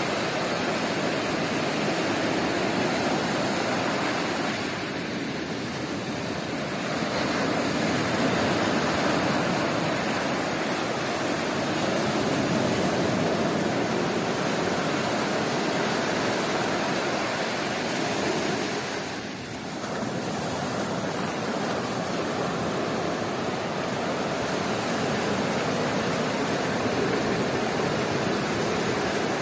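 Sea surf washing onto a beach: a steady rushing of waves, easing briefly about five seconds in and again near twenty seconds.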